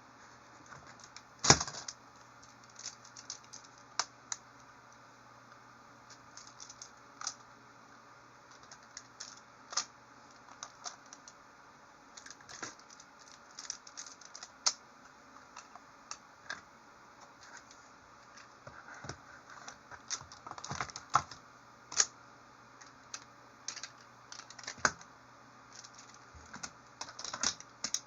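Plastic magnetic building tiles clicking and clacking as they are handled and snapped together, in irregular sharp clicks, the loudest about a second and a half in.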